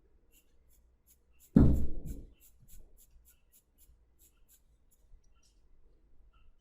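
Quick, short sketching strokes scratching on paper, about four a second, as feather texture is hatched in. One dull thump about one and a half seconds in is the loudest sound.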